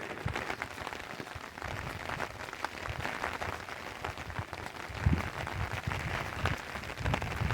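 Steady rain pattering, a dense crackle of many small drops, with a few low knocks about five seconds in and again near the end.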